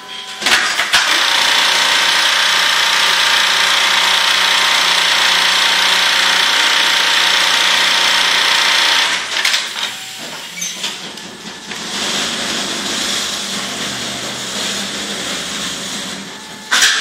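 Brother industrial programmable pattern sewing machine stitching a clamped template at speed: a couple of sharp clunks, then a loud, even rattle for about eight seconds. It falls to a quieter, uneven running with small knocks, and a sharp clunk comes near the end.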